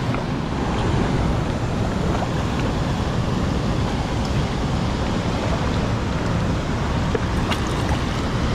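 Steady rush of flowing river water, with a couple of faint clicks near the end.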